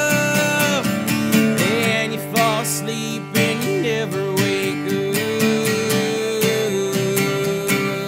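Sunburst archtop acoustic guitar strummed in a steady rhythm, about four strums a second, with a long held note over it in the middle.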